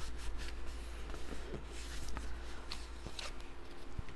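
Cardstock being handled and worked on a table: light rustling, scraping and small taps, over a steady low hum.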